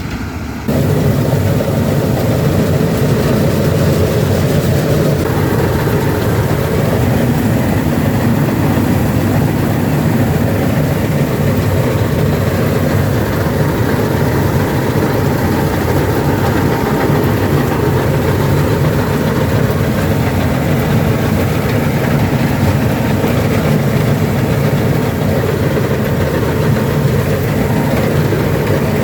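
Rice combine harvester running steadily, its diesel engine and threshing machinery going together. The noise starts abruptly just under a second in.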